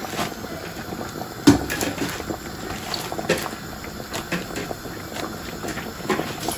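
Pot of sinigang (pork in tamarind soup) simmering with lettuce leaves in it: a steady bubbling hiss with many small pops and crackles. A sharper click comes about a second and a half in.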